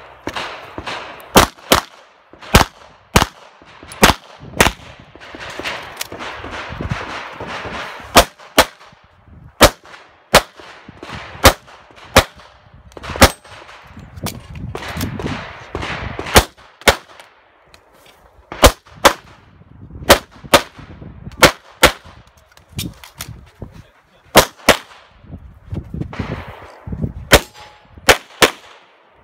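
A handgun fired in rapid strings through a practical-shooting stage, the shots mostly in quick pairs (two hits per target), with short gaps of rustling noise between strings as the shooter moves.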